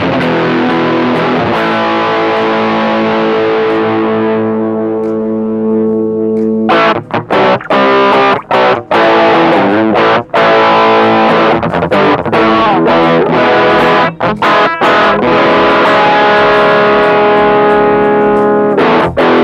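Electric guitar played through the amp with the Caline High Peak distortion pedal bypassed, giving the clean reference tone: one long chord left ringing for about seven seconds, then a run of strummed chords cut by short, choppy stops.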